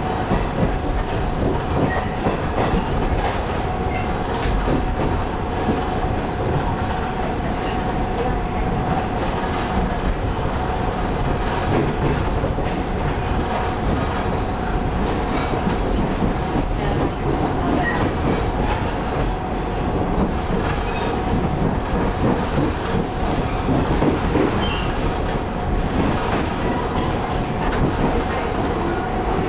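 Running noise of a Taiwan Railway local (區間車) electric train heard from inside the passenger car: steady wheel-and-rail rumble with clickety-clack over the track joints, under a constant whine.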